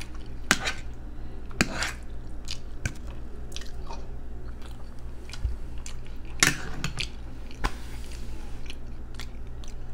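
Close-miked mouth sounds of a person chewing forkfuls of food, with scattered wet smacks and clicks over a steady low hum.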